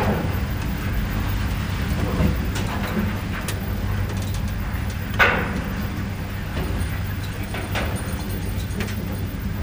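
Steady low mechanical hum inside a lift car, with a few faint clicks and one sharper knock about five seconds in.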